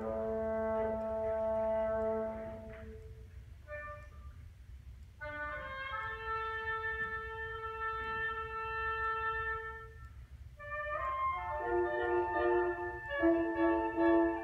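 Student concert band of clarinets, bassoons and brass playing slow held chords. Around three seconds in it falls to a soft pause with a few short notes, resumes with a long sustained chord, and from about eleven seconds moves into a louder passage with moving notes.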